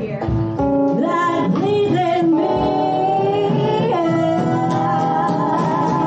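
Live band playing: a singer holding and sliding between long notes over guitar and drums.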